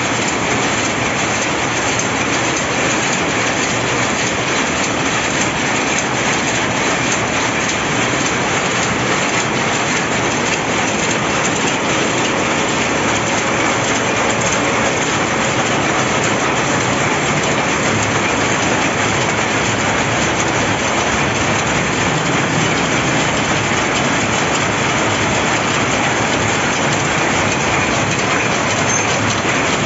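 Jacquard power looms running in a weaving shed: a loud, dense, unbroken clatter of many machines at once.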